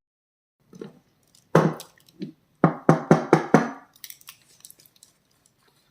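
A string of sharp knocks and clicks from hard objects being handled, each knock ringing briefly. They come thickest in the middle, about six in quick succession, then thin out to faint clicks and stop about a second before the end.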